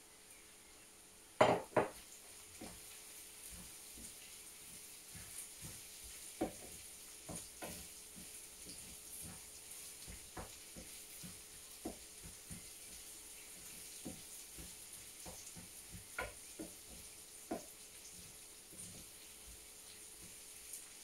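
A metal spoon clinks sharply twice against crockery about a second and a half in, then taps and scrapes around a frying pan as chicken filling is stirred, over a faint steady sizzle.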